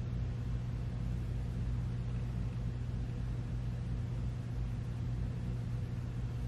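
A steady low hum over a faint hiss: the room's background noise, unchanging throughout.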